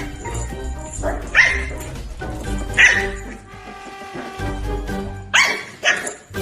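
A dog barking four times, spread out, over background music.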